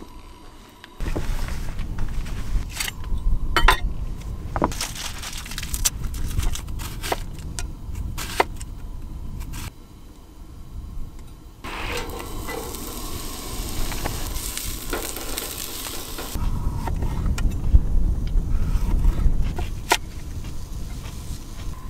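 A kitchen knife chopping onion and yellow pepper on a wooden cutting board, in sharp irregular knocks, with gusty wind rumbling hard on the microphone. In the middle the rumble drops and a steady hiss takes over for about four seconds.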